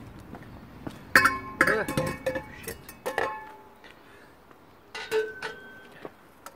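Stainless steel exhaust pipes clanking on the ground and against each other, ringing after each knock: a cluster of knocks in the first half and one more about five seconds in.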